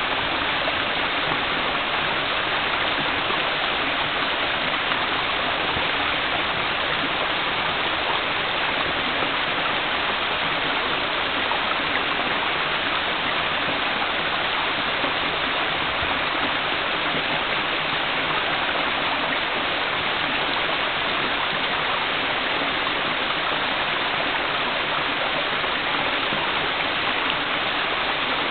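Waterfall rushing steadily, a continuous even noise of falling water with no change in level.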